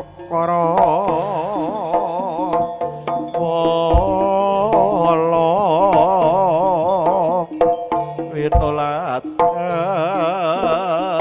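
Live jaranan music accompanying a barongan dance: a held, strongly wavering melody line over hand-drum strokes, with deep thumps about four seconds in and again near eight and a half seconds.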